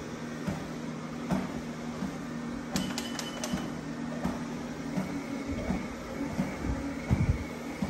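A steady low machine hum, overlaid with bumps and rubbing from a hand-held phone being moved, and a quick run of sharp clicks about three seconds in.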